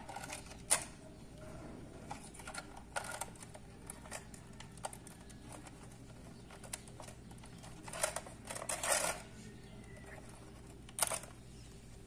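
Handling noises of bare wire ends being pushed and wiggled into the socket holes of a plastic power strip: irregular small clicks and scrapes, with a louder cluster about eight to nine seconds in and another near eleven seconds. A faint steady low hum runs underneath.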